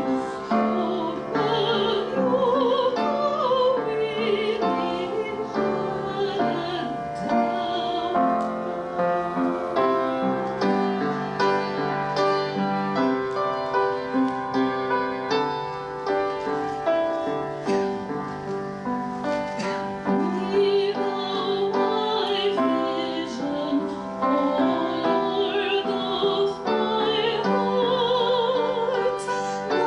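Classical solo singing in operatic style, the voice with a wide vibrato, accompanied by piano.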